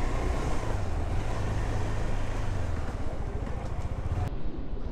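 Motorbike ridden slowly, heard as a steady low rumble of wind and road noise on the camera microphone. The sound changes abruptly near the end, as at an edit.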